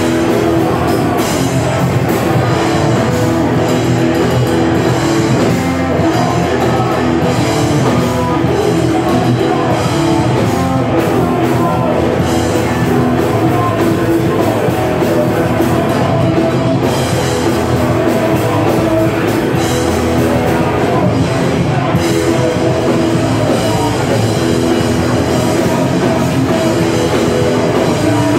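Hardcore punk band playing live at full volume, distorted guitars and a drum kit going without a break.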